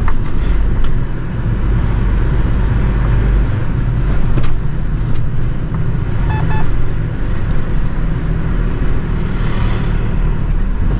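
HGV diesel engine running steadily with road and cab noise as the lorry drives slowly. A short run of quick electronic beeps sounds a little past halfway.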